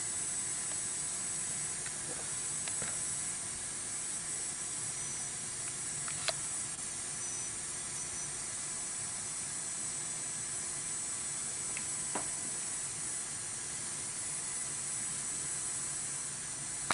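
Steady hiss of radio static from a weather radio receiver that is not getting a clear signal, with a couple of faint clicks.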